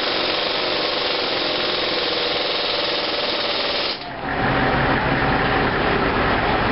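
A handheld power tool runs steadily with a buzzing rattle for about four seconds, then cuts off abruptly. It is followed by a deeper, steady engine sound.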